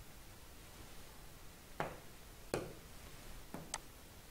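A few short, light clicks and taps, about four, spread through the second half, made while writing on a computer whiteboard; low room tone between them.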